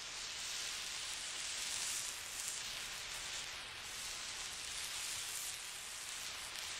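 Steady hiss like static or white noise, with no distinct blast or boom standing out.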